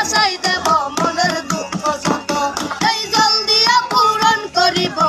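A boy singing a Bengali folk-style song in a high, wavering voice with ornamented bends, over quick, steady percussion beats.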